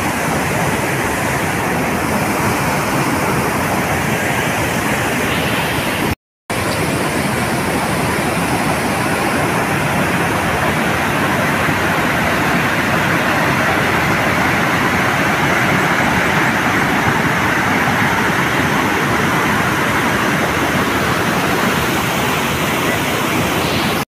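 Waterfall rushing: a loud, steady roar of falling water that cuts out briefly about six seconds in.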